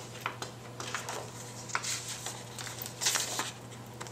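Paper pages of a spiral-bound planner being turned, with a loud rustle about two seconds in and another about three seconds in, and light taps of paper between them, over a steady low hum.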